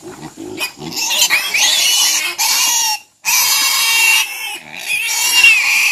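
Domestic pig squealing loudly in long, high-pitched screams, with a short break about three seconds in: the alarm squeal of a pig being caught and handled.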